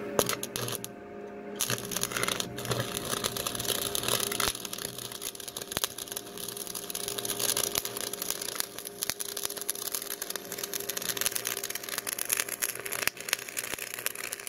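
Stick-welding arc burning a 7018 rod, a dense steady crackle. The arc is struck at the start, breaks off briefly about a second in, then is restruck and burns on.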